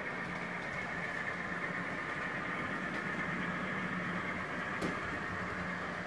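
A steady mechanical hum with a constant low drone, and one sharp click about five seconds in.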